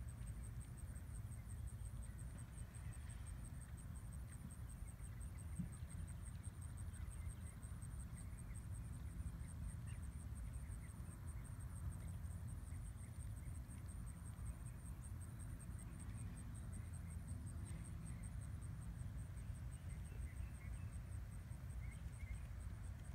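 Insects trilling steadily at a high pitch, a rapid unbroken pulsing, over a low steady rumble.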